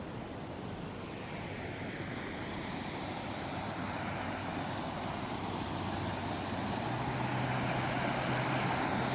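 Steady rush of floodwater still running through the washed-out channel, growing louder toward the end. A low engine hum runs under it and rises in pitch near the end.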